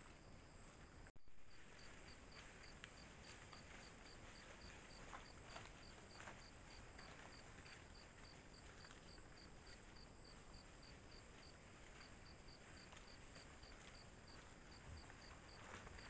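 Faint forest ambience on a trail camera's microphone: an insect chirping steadily about three times a second, with a few soft rustles and clicks in the leaf litter from foraging peccaries. The sound drops out briefly about a second in.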